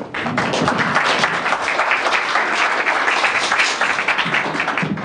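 Audience applauding: dense clapping that starts at once and fades out near the end.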